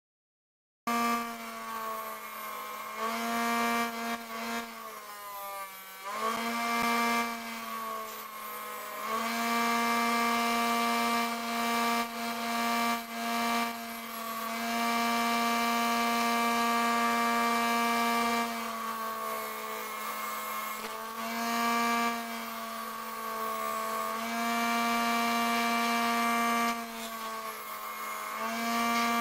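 Homemade bench grinder driven by a 12-volt, 250-watt permanent-magnet DC motor, whining at a steady pitch while a steel knife blade is ground on its stone wheel. The hiss of steel on the stone comes in several passes, the longest and loudest around the middle. The motor's pitch sags under heavier pressure about five seconds in.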